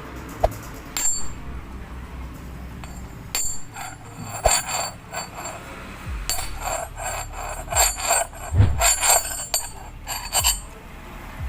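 Hard objects clinking and knocking together, a series of sharp metallic clicks with a high ring, mixed with a few dull thuds.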